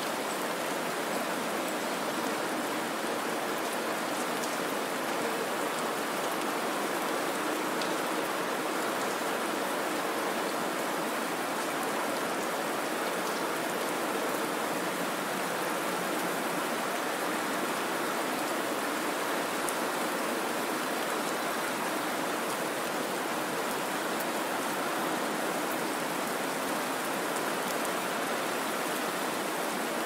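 Steady rain falling: an even, unbroken hiss with a few faint single drop ticks.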